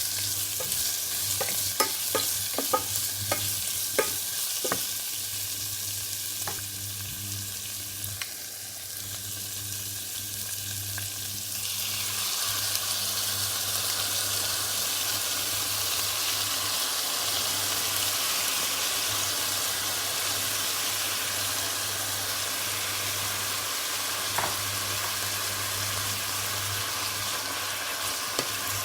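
Food sizzling as it is stir-fried in a pan, with a utensil clicking and knocking against the pan during the first few seconds. The sizzle grows louder about twelve seconds in and then runs steadily.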